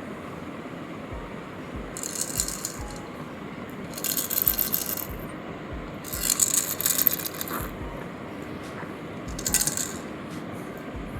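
A baby's rattle toy being shaken in four short bursts, about two seconds apart.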